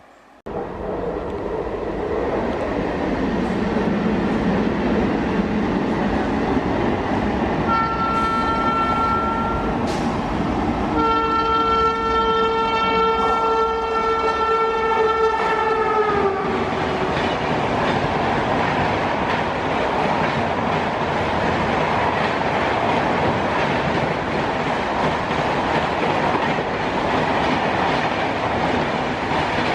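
Indian Railways express train passing at speed: a short horn blast, then a longer one whose pitch drops near its end as the locomotive goes by, followed by the steady noise of the coaches rushing past.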